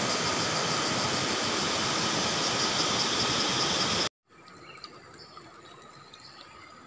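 Steady loud rushing noise with a few steady high tones through it, which cuts off abruptly about four seconds in. After the cut comes a much quieter outdoor background with faint high chirps.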